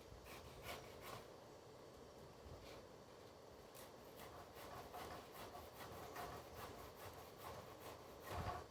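Faint, irregular strokes of a hand saw rasping through a tree branch.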